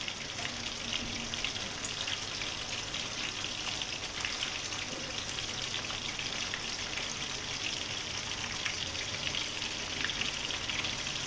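Pieces of fish coated in turmeric and egg white deep-frying in hot oil: a steady crackling sizzle with many fine pops.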